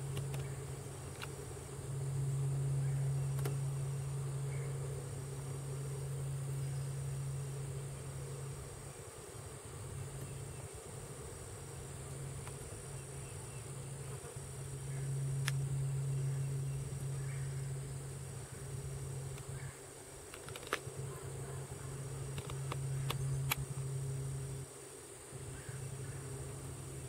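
Low insect buzzing that swells and fades, dropping out briefly a few times, over a steady high-pitched hum, with a few faint clicks.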